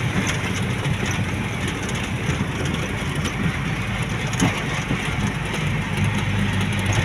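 Engine of a moving road vehicle running steadily, with road and wind noise, heard from on board.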